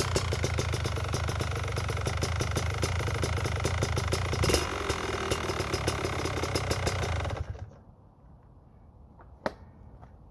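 Kawasaki KDX two-stroke dirt bike engine running steadily, then shut off about seven and a half seconds in. A single sharp click follows about two seconds later.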